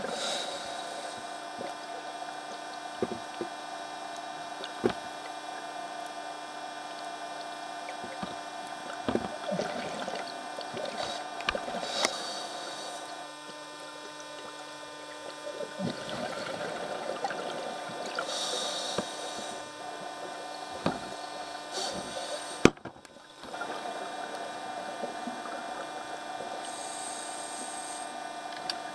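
Underwater scuba-dive audio from a camcorder in its housing: a steady mechanical hum made of several fixed tones, with a few hissing bursts of exhaled regulator bubbles and scattered sharp clicks and knocks, the sharpest about two-thirds of the way through.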